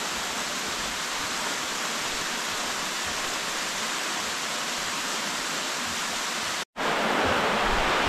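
Steady rush of a mountain stream's water cascading over rocks. It drops out for an instant near the end, then returns slightly louder.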